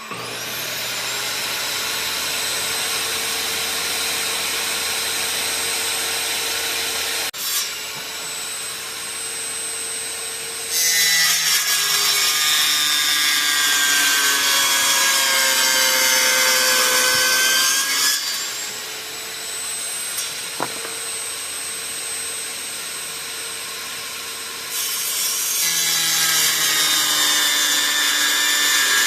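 Electric power tool running steadily, then cutting plexiglass sheet in two louder stretches, its whine sagging in pitch under the load of the cut.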